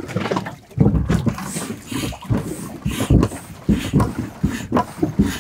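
Foot-operated bellows pump being stepped on repeatedly, each stroke a thump and a breathy whoosh of air pushed through its hose into an inflatable dinghy. The strokes come about one or two a second.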